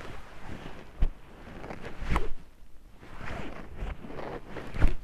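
A jacket rustling as a man moves his arms and hands to sign, with a few soft thumps, the loudest near the end.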